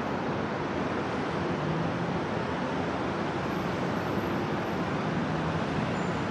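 Steady noise of road traffic, an even rushing rumble with no distinct events.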